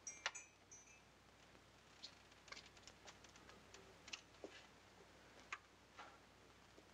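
Near silence with a few faint, scattered clicks and light knocks at irregular intervals. A few high chime notes die away within the first second.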